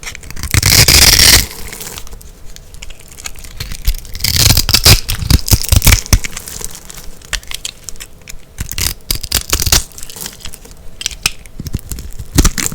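Dry, crunchy soap being cut and crushed: dense crisp crackling and crunching that comes in loud stretches, about a second in and again from about four to six seconds, with scattered crackles between.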